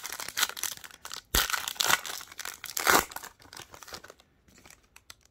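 Foil wrapper of a Mosaic 2021 baseball card pack being torn open and crinkled by hand, with dense crackling for about three seconds, loudest just before the end of that stretch, then dying away to a few faint rustles.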